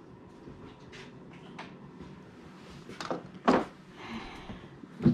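A few scattered knocks and clunks of things being handled, the loudest about three and a half seconds in and another at the very end, with a short hiss about four seconds in.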